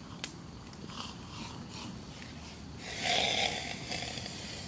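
Small wood campfire crackling with occasional sharp pops, and a brief louder rush of noise about three seconds in.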